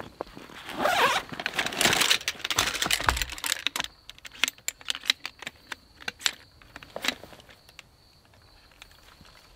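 Nylon fabric rustling and scraping as a folding camp chair's seat is worked onto its metal frame, then a run of sharp clicks and light metallic taps as folding metal poles are snapped into their hub, thinning out toward the end.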